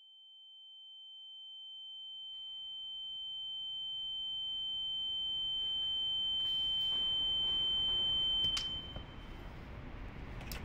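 A steady high-pitched ringing tone, with a fainter lower tone beneath it, swells slowly louder and then cuts off sharply with a click about eight and a half seconds in. A low rumble of background noise rises underneath and carries on after it. This is an ear-ringing effect of the kind used in film sound design.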